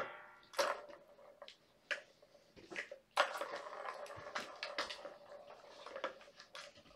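Kittens at play with their toys: scattered light knocks, taps and rattles, with a sharp knock just under a second in and a longer run of rattling about three seconds in.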